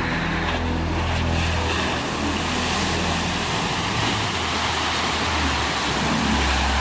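A vehicle driving, its engine droning low and shifting in pitch a few times, under a steady rush of wind and road noise.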